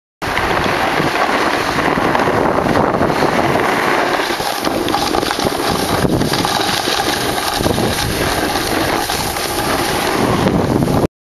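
Wind rushing over the camera's microphone on a fast downhill run over groomed snow, mixed with the hiss of sliding on the snow. The rush is steady and loud, starting and cutting off abruptly.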